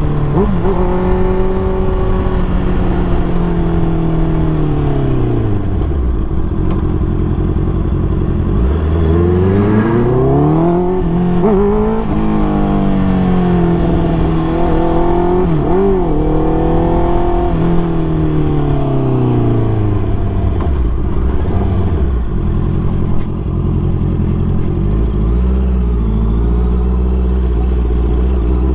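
Honda CBR650R inline-four engine with a Mivv full-system exhaust, running while the bike is ridden. The engine note drops over the first several seconds, rises again about a third of the way in, dips sharply for a moment near the middle, then falls and settles to a low steady note near the end.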